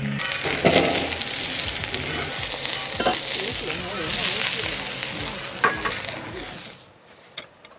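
Food sizzling and frying in a hot pan, with a couple of sharp knocks; the sizzling stops abruptly about two-thirds of the way through.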